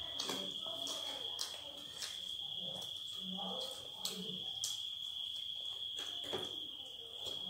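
Two people eating roti by hand: chewing, lip smacks and small sharp clicks at irregular intervals, over a steady high-pitched trill.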